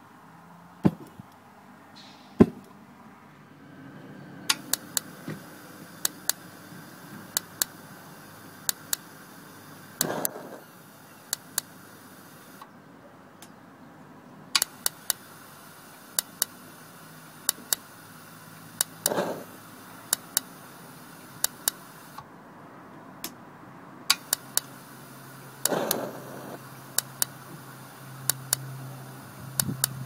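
Carver Cascade 2 gas water heater's spark ignition clicking in irregular runs over a low steady hum, with a short louder burst about every nine seconds; the heater is trying to light and not starting.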